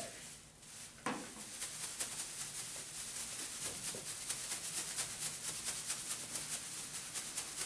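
A plastic garbage bag holding shredded diaper padding being shaken hard and fast: the plastic crinkles and rustles in a quick, even rhythm. The shaking starts about a second in with a thump.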